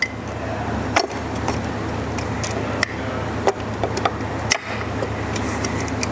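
Hard plastic and metal clicks of a Thule Edge roof rack foot's clamp being worked into place by hand, several sharp clicks about a second apart, over a steady background hiss.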